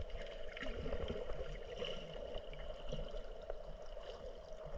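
Muffled water sloshing and gurgling around a submerged camera, with scattered small clicks and a faint steady high tone.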